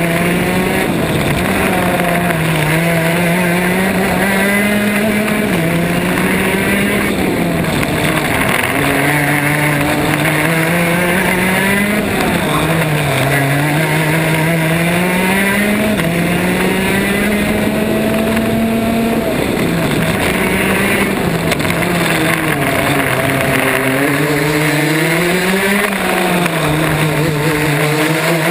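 Racing kart engine heard onboard at speed, its pitch climbing steadily as it accelerates and dropping sharply each time it comes off the throttle for a corner, five or six times over. A steady rushing noise runs underneath.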